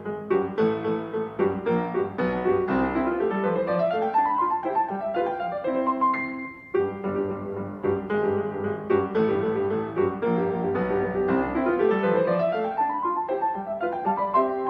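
Background music on a piano-like keyboard: a melody of quick notes with rising and falling runs, the phrase coming round again about halfway through after a brief pause.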